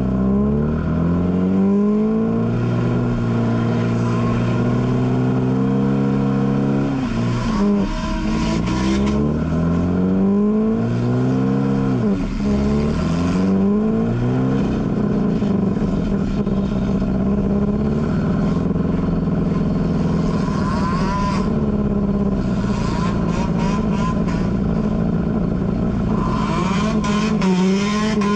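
A field of enduro race cars running laps, several engines at once revving up and easing off as they pass.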